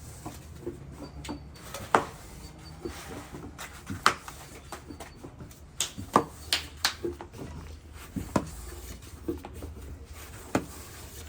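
Irregular sharp knocks and clicks, about nine in all, some with a brief ring, over a faint low background. The loudest come about two seconds in and about six seconds in.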